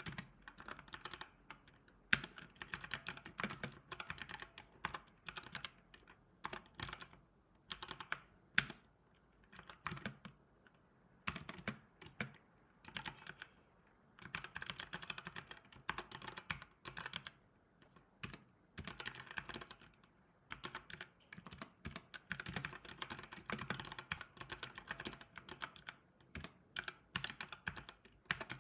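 Typing on a computer keyboard: runs of rapid key clicks broken by short pauses, with a few single louder key strikes, one about two seconds in and another near nine seconds.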